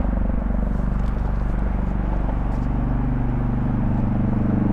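A steady, loud, low engine drone, its pitch sagging slightly about two seconds in and rising again.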